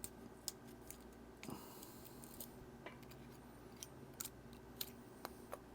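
Faint small clicks and a brief scrape from a G-Shock watch module being worked on to free its CR2016 coin battery, which is held under strong tape. The clicks come at irregular moments, with a short scratchy scrape about one and a half seconds in.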